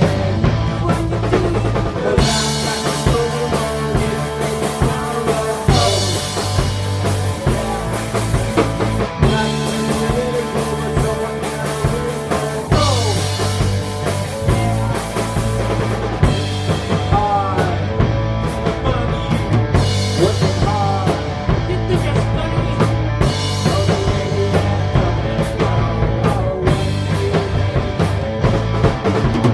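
Punk rock band playing loudly: a drum kit drives a steady beat with bass drum and snare under the other instruments, and cymbal-heavy passages swell and drop back every few seconds.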